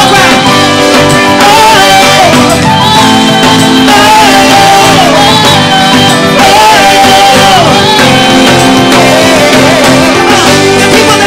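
Live praise and worship band music: steady held chords and a bass line, with a wavering melody line above them.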